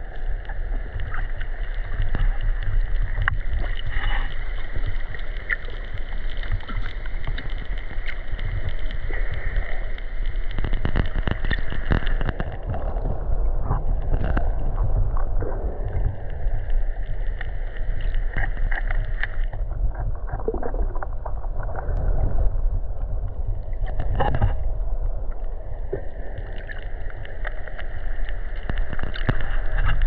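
Open-ocean underwater sound picked up by an action camera: a steady deep rumble of water around the camera housing, with a high steady whine that drops out a few times and scattered small clicks.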